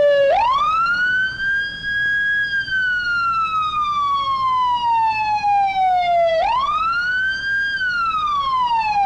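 Police car siren wailing: the pitch sweeps up quickly, then falls slowly over several seconds, and sweeps up again about six and a half seconds in.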